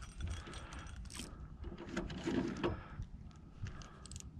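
Fishing reel being cranked to reel in line, a rattle of gear and ratchet clicks, loudest about halfway through.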